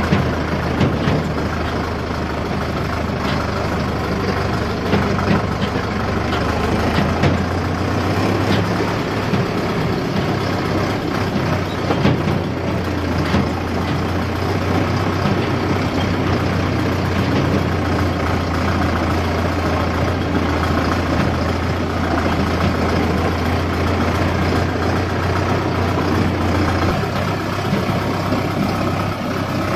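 Heavy corn-harvesting machinery running steadily: a constant low engine hum under a dense mechanical clatter, with scattered knocks. The low hum drops a little about three seconds before the end.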